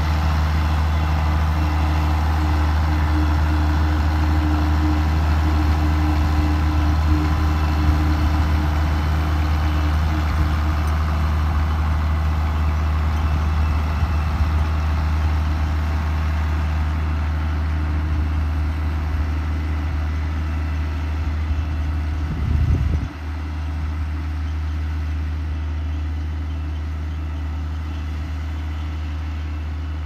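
International Harvester 856 Wheatland tractor's six-cylinder engine running steadily under load as it pulls a Vermeer 5400 Rebel round baler through the hay windrows. There is a brief louder surge about three-quarters of the way through, and the sound is a little quieter after it.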